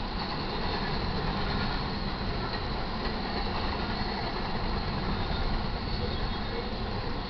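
Double-stack container cars of an intermodal freight train rolling past at a crossing: a steady rumble and rush of steel wheels on rail.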